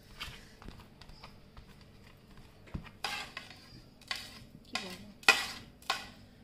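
Metal spoon scraping and clinking against a ceramic plate as chopped vegetables are pushed off it into a bowl. It is faint small ticks at first, then about five short, sharper scrapes in the second half.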